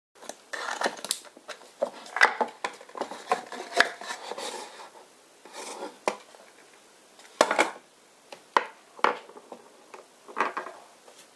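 Hands handling a small wooden box and small plastic toy figures: an irregular series of clicks, knocks and rubbing as the hinged lid with its metal clasp is worked and the toys are picked up and set down.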